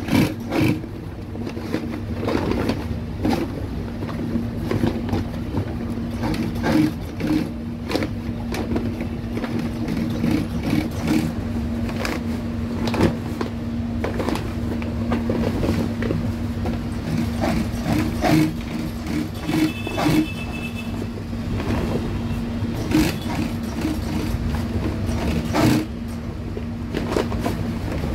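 MADI industrial sewing machine running as it stitches heavy waterproof canopy fabric, a steady hum that stops just before the end. Irregular rustles and knocks come from the stiff fabric being pushed and smoothed under the presser foot.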